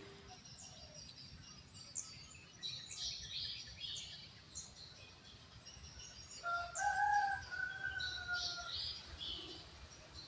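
Small birds chirping and twittering, with a rooster crowing once, a drawn-out call of about two seconds, a little past the middle.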